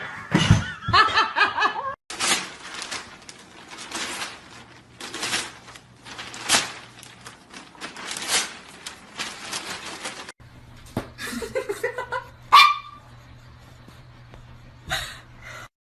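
People laughing in repeated breathy bursts, with changes about two and ten seconds in.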